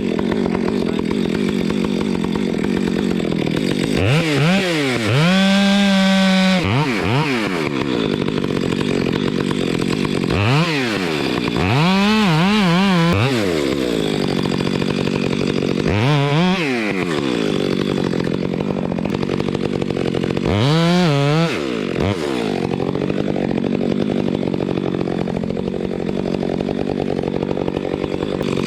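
Gas chainsaw running, throttled up to full revs five times in bursts of a second or two and dropping back to a steady idle between them, as when cutting into a tree trunk.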